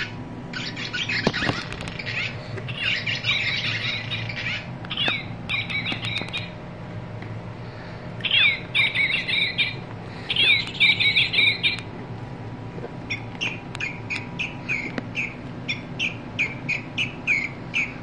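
Recorded bird calls played by the squeeze-activated sound boxes of Audubon plush toy birds through their small speakers. One call, a sharp rising-and-falling note and then a short trill, sounds three times exactly alike, as the same toy is pressed again. Near the end comes a run of about a dozen short falling notes.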